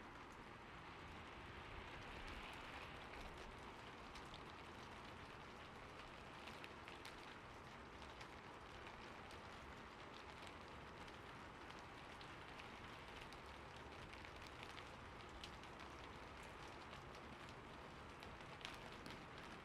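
Faint steady patter of falling water, with many small drip-like ticks scattered through it.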